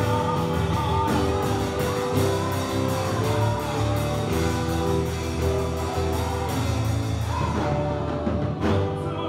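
Live worship band music without vocals: sustained chords over a bass line and a steady percussion beat. The beat drops away about eight seconds in.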